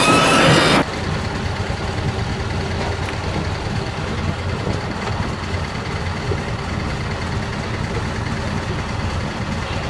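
Livestock truck's diesel engine idling, a steady low rumble. It opens with a loud hiss carrying a rising whistle-like tone that cuts off abruptly just under a second in.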